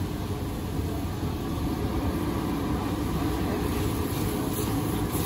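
Steady low roar of a commercial gas burner under a large steel wok, with a steel ladle stirring a thin schezwan soup base in the wok.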